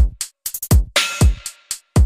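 Background electronic music with a drum-machine beat: deep kick drums falling in pitch, with short high ticks between them and a quick roll of ticks about half a second in.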